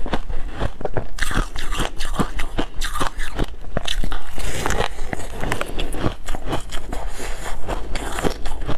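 Close-miked biting and chewing of crumbly, frosty ice: sharp crunches and crackles several times a second.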